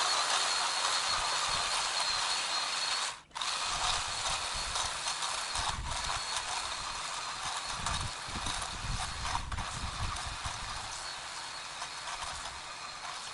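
Ryobi 40V cordless edger running under load, its blade set deep and chopping through soil and turf. It cuts out briefly about three seconds in, then runs on.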